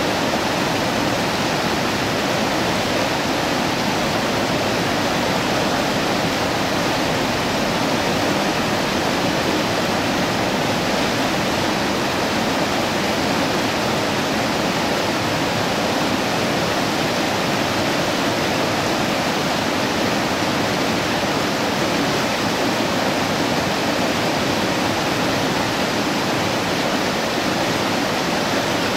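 Mrežnica river water rushing steadily, a constant even wash of sound.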